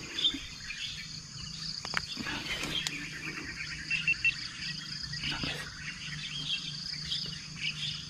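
Birds chirping with short calls scattered throughout, over a steady high-pitched insect drone. A couple of faint clicks come about two and three seconds in.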